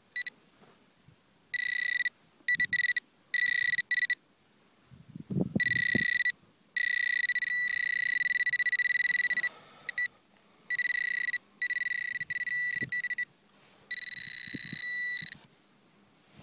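Handheld metal detector pinpointer probed through soil, giving a steady high buzzing tone that switches on and off as the tip nears and leaves a buried metal target. There are some low scrapes of soil being moved about five seconds in.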